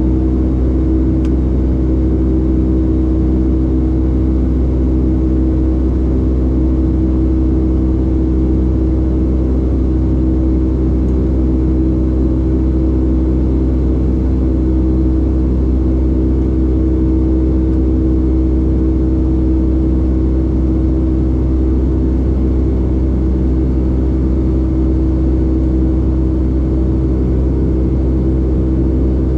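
Steady cabin drone of a Boeing 757-200 in flight: the jet engines' hum with several constant low tones over even airflow noise, unchanging throughout.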